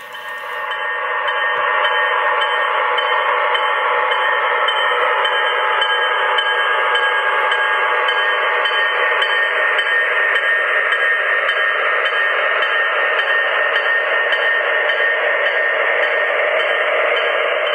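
Onboard diesel engine sound of MTH Proto-Sound 2 O-gauge ALCO C-628 model locomotives, a steady engine drone played through their small speakers, swelling up over the first two seconds and then holding even.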